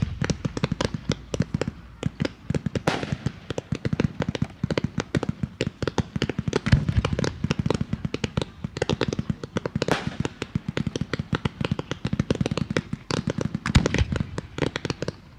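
Aerial fireworks display: a dense, rapid run of bangs and pops from bursting shells, with a louder boom every three to four seconds. It stops abruptly at the end.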